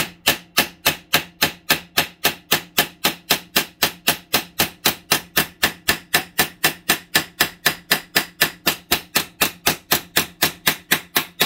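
Planishing hammer striking a MIG weld seam in a steel plate on a bench vise, in quick, very even blows of about four and a half a second, with a steady low ring from the metal under them. The seam is being stretched flat to test whether the MIG weld is too hard and will crack.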